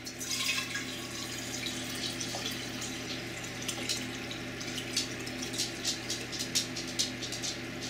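Water pouring from a plastic gallon jug into a glass jar: a steady stream with scattered small splashes as the jar fills.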